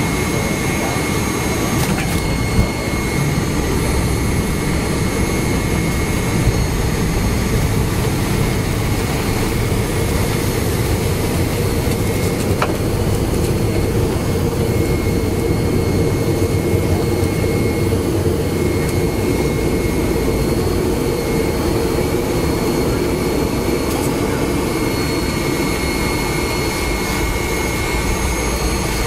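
Cabin noise of a McDonnell Douglas MD-90 taxiing: its rear-mounted IAE V2500 turbofans idling with a steady high whine over a steady low rumble. Two short knocks come in the first several seconds.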